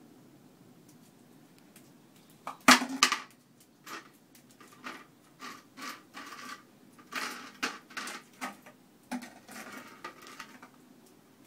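Plastic bin lid clattering and scraping on a concrete path as a puppy pushes it about. A loud clatter comes a couple of seconds in, then a run of shorter scrapes and knocks.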